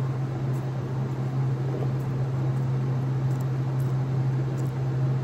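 A steady low hum with a soft rushing noise over it, the kind a running fan or air-conditioning unit makes, with a few faint clicks between about three and five seconds in.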